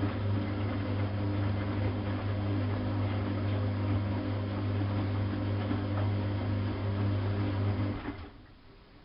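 Bosch WFK 2431 washing machine motor turning the drum in the wash rhythm, a steady low hum with a grinding edge that stops about eight seconds in as the drum pauses. This motor noise is one the owner says he will never get used to.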